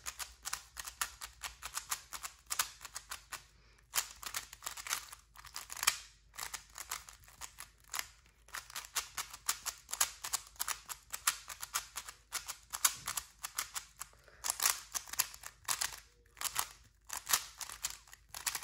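Valk Power M 3x3 speed cube being turned fast: rapid runs of clicking, clacking layer turns, broken by brief pauses between algorithms.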